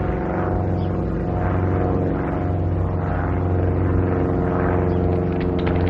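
Steady drone of a small propeller plane's engine, low and even, with a slow swelling in its upper register; a run of sharp clicks comes in near the end.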